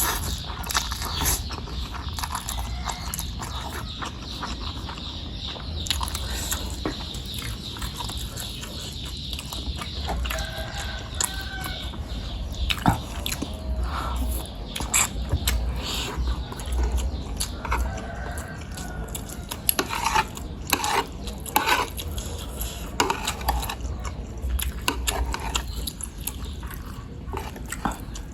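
Close-up mukbang eating sounds of spicy bakso meatballs and noodles: chewing and biting with many short, irregular clicks and smacks, over a steady low hum.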